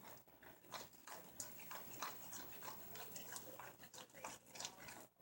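Homemade no-glue slime being squished and pulled by hand, giving faint, irregular sticky clicks and crackles.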